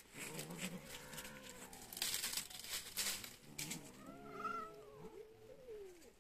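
Street cats meowing around their food, with a drawn-out meow that falls in pitch near the end. A run of sharp crackling clicks comes about two seconds in.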